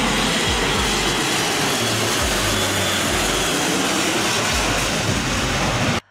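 Airbus A400M's four turboprop engines and eight-bladed propellers running loud as the aircraft flies low past: a steady, dense noise with a deep rumble underneath that cuts off suddenly near the end.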